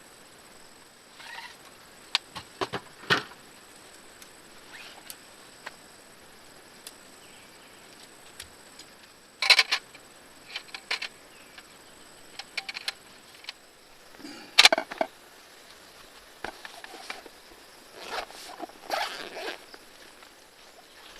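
Camp gear being handled: scattered clicks, knocks and short rustles at an uneven pace, the loudest clatters about halfway through and again some five seconds later, over a faint steady hiss with a thin high tone.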